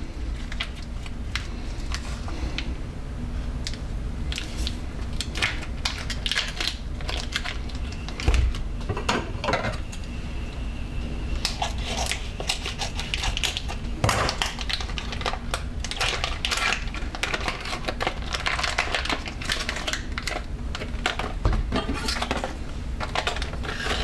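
Irregular clicking, tapping and clattering of plastic parts and utensils at a Cuisinart Complete Chef food processor as Velveeta cheese is worked through its disc, with a steady low hum underneath. Two sharper knocks stand out, about 8 and 14 seconds in.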